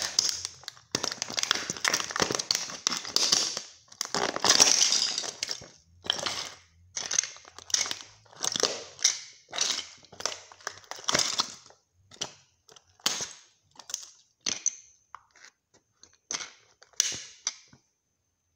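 A resin scale model of a Honda Civic Type R being crushed under a sneaker on a concrete floor, brittle resin cracking and crunching. Dense crunching for the first several seconds, then separate stomps and crunches about once a second, fewer and quieter toward the end.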